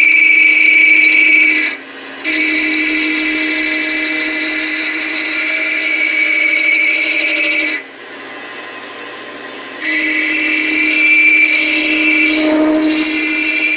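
Metal lathe parting tool cutting through a metal bar, with a loud, steady, high-pitched squeal. The squeal breaks off briefly about two seconds in, and again for about two seconds near the eight-second mark, before the cut resumes. It is very noisy, and the machinist takes it as a sign the cut needs more lube.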